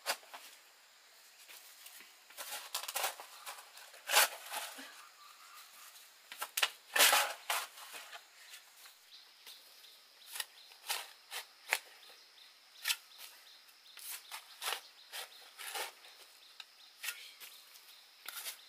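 Irregular crackling and rustling with scattered sharp snaps, the loudest about four and seven seconds in, over a faint steady high-pitched tone in the second half.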